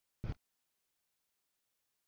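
Dead silence broken once, about a quarter second in, by a single short low thump.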